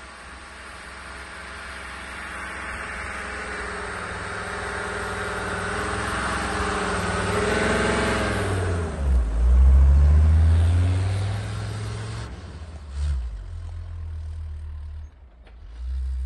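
Mercedes-Benz 290 GD's five-cylinder diesel engine driving past on a snowy road: it grows louder as it approaches, drops in pitch as it passes about eight or nine seconds in, then fades, with a deep low rumble after the pass.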